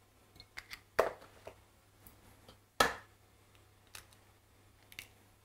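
Eggshells cracked and handled as eggs are separated by hand: two sharp cracks about two seconds apart, with lighter clicks of shell around them.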